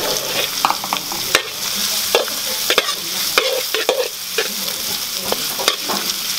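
Chopped garlic and grated carrot sizzling in hot oil in a metal wok. A metal ladle stirs them, scraping and clicking against the wok many times at uneven intervals.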